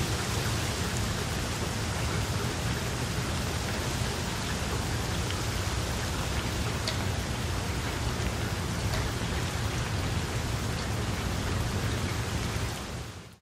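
Steady rain falling on water, an even hiss with a few single drops ticking through it. It fades out quickly near the end.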